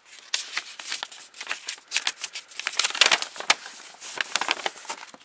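Paper and plastic packaging being handled: an invoice and wrapping rustling and crinkling in irregular crackles, loudest about three seconds in.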